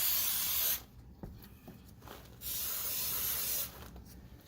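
Spray foam gun hissing in two bursts, one ending about a second in and another of just over a second near the middle, as fresh foam is sprayed to seal gaps in old attic-floor foam.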